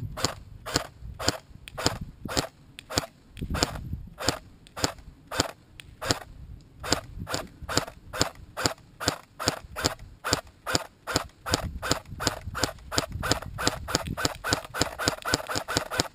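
Electric airsoft AK rifle firing on semi-automatic: a steady string of sharp single shots, about two to three a second. Wind rumbles on the microphone underneath.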